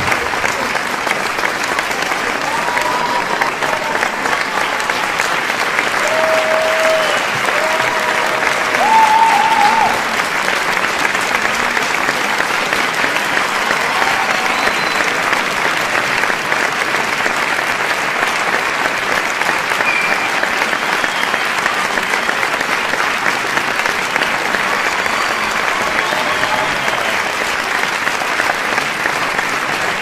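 Large crowd applauding steadily, with shouts and cheers from the audience over the clapping. A few held shouts stand out between about six and ten seconds in.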